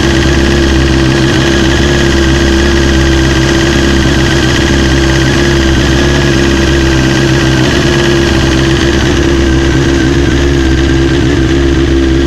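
A car engine idling steadily, filmed close up for an unexplained knock in it.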